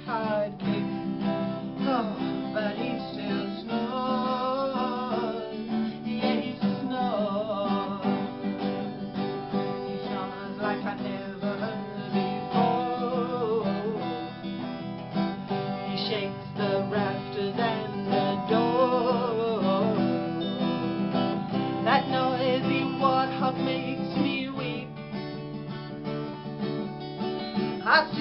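Instrumental break of a country-style song: strummed acoustic guitar chords with a wavering melody line over them.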